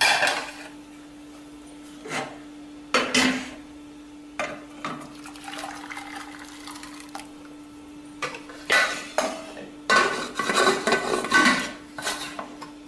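Aluminium pressure cooker pots clanking and scraping on a gas stove. Water is poured from one cooker into the other about halfway through, and a metal cooker lid clatters into place near the end.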